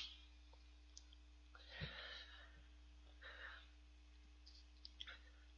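Near silence with faint sounds of eating shaved ice: a couple of soft noises around two and three seconds in, and a few small clicks near the end as a paper bingsu cup is handled.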